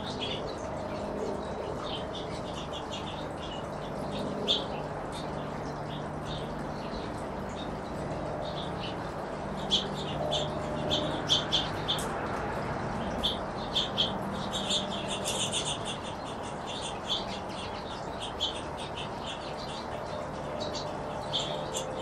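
Small finches chirping at a seed feeder: short, high calls scattered throughout, busiest about halfway through, over a faint steady low hum.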